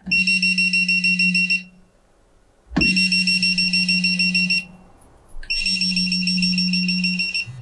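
A PAN Allrounder 200AD single-pole phase tester sounds its alarm three times as the probe touches live phase conductors, each time for under two seconds. Each alarm is a rapidly pulsing high beep with the low buzz of the vibration alarm under it, the signal that the conductor is a live phase.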